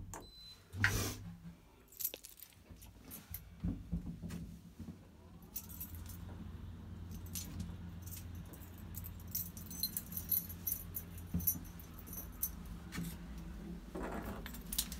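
A lift ride: a short beep as the floor button is pressed, then the lift car's low, steady hum as it travels. Over the middle of the ride there is a light metallic jingling with small clicks.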